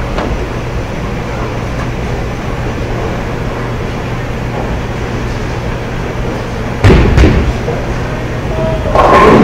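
Bowling alley noise: a steady low hum, then a sudden loud crash with a second strike right after it about seven seconds in, typical of a ball striking pins. More clattering follows near the end.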